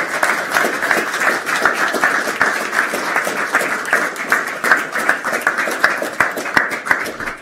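Audience applauding: many hands clapping in a dense, steady patter that dies away at the end.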